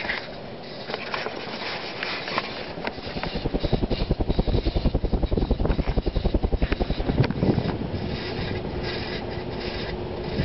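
Emerson Heat Fan HF-152 three-blade ceiling fan with a K63 motor running on high, its worn-out bearings hissing and rasping. A fast rhythmic low throbbing comes in about three seconds in and eases off around eight seconds.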